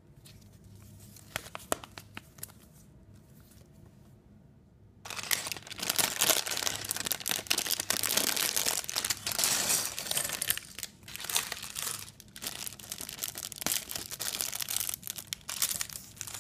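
Clear plastic bag of LEGO pieces being crinkled and torn open by hand: a few quiet seconds of light handling, then loud continuous crackling of thin plastic from about five seconds in.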